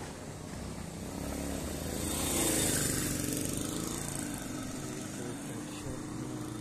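A motor vehicle passing close by, its engine and road noise swelling to a peak about two and a half seconds in, then fading away.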